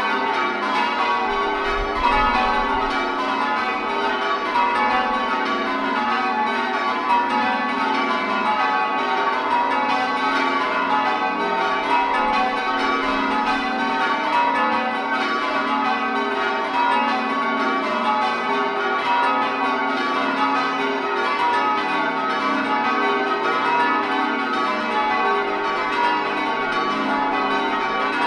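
Full-circle change ringing on a ring of eight church bells, tenor in F♯, the bells striking one after another in a continuous, even rhythm.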